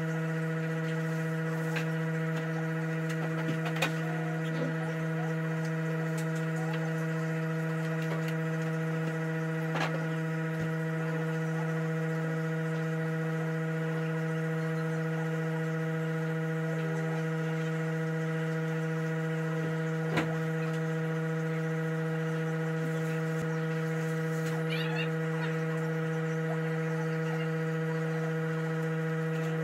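Steady electrical hum with a buzzy edge, unchanging throughout, with a few faint clicks and taps, the most distinct about two-thirds of the way through.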